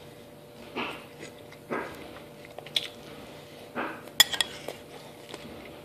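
A spoon scraping and clinking against a bowl of cereal: several soft scoops and a few sharp clinks, the loudest a little past four seconds in.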